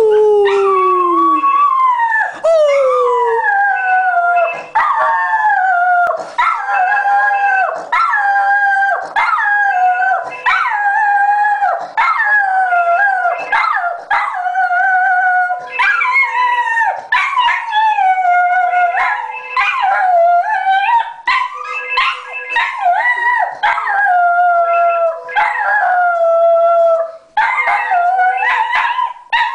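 Border terrier howling over and over, a long run of pitched howls that mostly slide down in pitch, with short breaks between them. The howling is set off by the telephone ringing.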